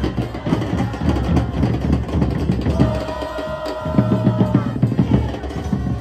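Football supporters in the stands singing a chant together to the steady beat of bombo bass drums.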